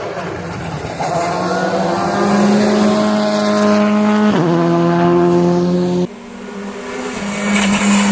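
Rally car engine at high revs under acceleration: the pitch climbs, holds, then drops sharply at an upshift about four seconds in. About six seconds in the sound cuts abruptly to a quieter passage and then builds again as a car approaches.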